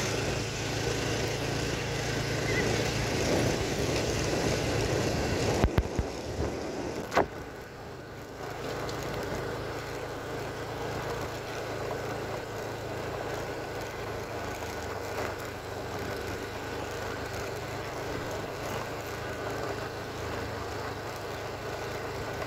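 Small motorcycle engine running at a steady speed while riding on a gravel road, with road noise. A few sharp knocks come about six seconds in and a single click about a second later, after which it runs a little quieter.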